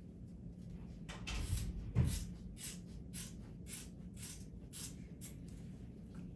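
An arm cast being taken off: a rustle and a thump about a second in, then a run of short, regular cutting or scraping strokes about two a second. A low steady hum runs underneath.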